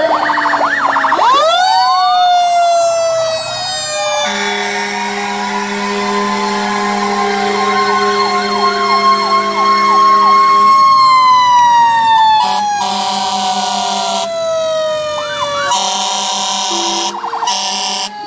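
Several fire engine sirens sounding at once as the trucks drive past. One wails and slowly falls in pitch while others yelp quickly, with long steady horn blasts through the middle and several shorter ones near the end.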